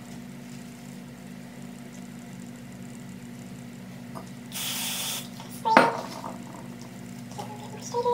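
One short spray hiss, about half a second long and halfway through, as from a spray bottle misting hair. A sharp click follows about a second later, over a low steady hum.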